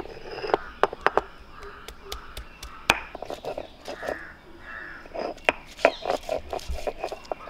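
A stone roller knocking and grinding on a flat stone grinding slab, crushing fresh ginger with irregular sharp knocks and scrapes. Crows cawing in the background.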